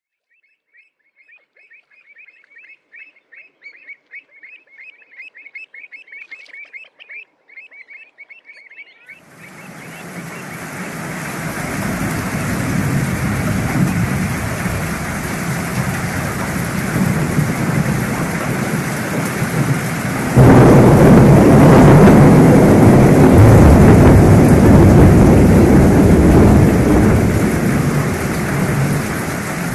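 Pied avocets calling, a quick run of repeated high notes. About a third of the way in heavy rain on open water takes over, with wind on the microphone, and two-thirds through it turns suddenly much louder and deeper.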